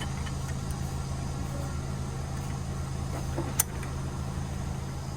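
Steady low hum of a running motor, with one sharp click about three and a half seconds in.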